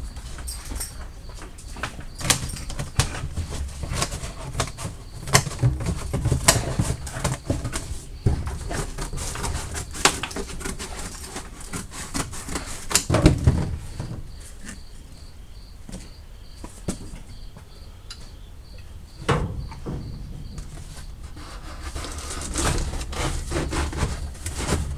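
Irregular knocks, clicks and rustling of hands-on handling, with a faint high chirp repeating evenly through much of it.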